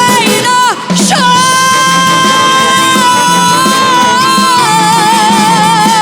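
Female singer with a six-piece orchestra, holding one long note that steps slightly lower with a wide vibrato near the end, after a brief break and downward slide about a second in.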